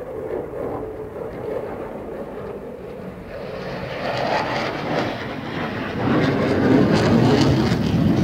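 Eurofighter Typhoon's two Eurojet EJ200 turbofans, a continuous jet noise as the fighter banks through a tight turn. It grows louder about three seconds in and again about six seconds in, with the afterburners lit.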